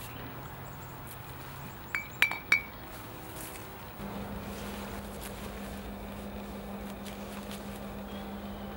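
A glass bottle and a drinking glass clink together three times in quick succession, each clink ringing briefly. From about four seconds in there is a steady low hum.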